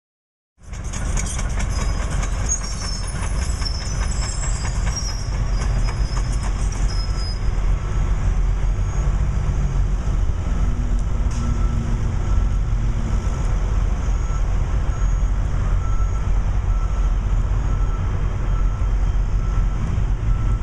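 Heavy diesel construction machinery running with a steady low rumble, with high squeaks during the first few seconds. From about nine seconds in, a faint beep repeats roughly once a second, like a backup alarm.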